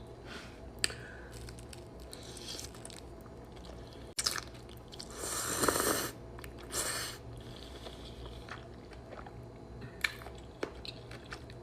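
A person chewing and eating close to the microphone: scattered small wet clicks and mouth noises, with a longer, louder burst of noise about halfway through.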